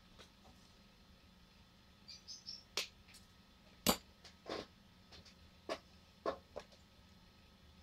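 Scattered light clicks and taps of hand tools, pliers among them, being picked up and handled on a workbench, the sharpest about four seconds in.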